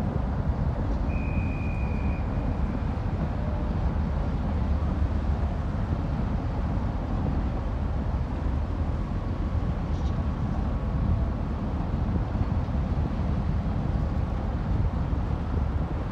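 Steady low rumble of the Japan Coast Guard patrol vessel Akitsushima's machinery as she lies at the pier, mixed with wind buffeting the microphone. A short high whistle-like tone sounds about a second in.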